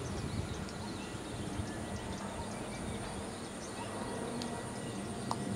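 Open-air ambience: a steady low background hum and hiss with faint, scattered high chirps and ticks.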